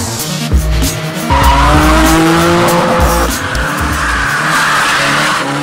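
Car engine revving, its pitch climbing about a second in and then held high, with tyres squealing.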